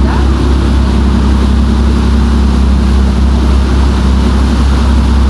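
Boat engine running steadily, a loud deep hum with water and wind noise over it.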